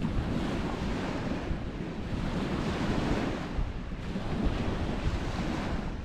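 Lake Erie waves washing onto a sandy beach, surging and easing every two to three seconds, with wind rumbling on the microphone.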